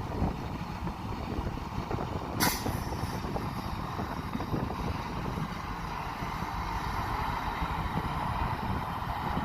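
Heavy diesel construction machinery (dump trucks and a bulldozer) running with a steady low rumble, with one sudden sharp burst of noise about two and a half seconds in. A higher engine note builds in the second half.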